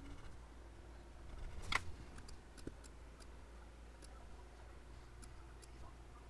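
Light, scattered clicks of a laptop's keys and trackpad over a faint room hum, with one brief louder knock a little under two seconds in.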